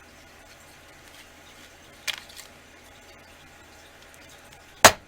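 Handling noise from craft supplies on a work table: a light click about two seconds in, then a louder, sharp knock near the end.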